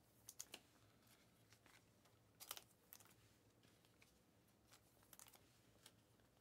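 Near silence broken by faint, scattered clicks and ticks of trading cards being handled and set down on a stack, a few at a time.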